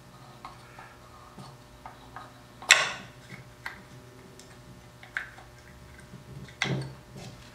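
Small plastic clicks and knocks as a replacement impeller assembly is slid into the housing of an ATI PowerCone skimmer's DC pump and its parts are lined up and seated, with one sharper click a little before the middle and another near the end.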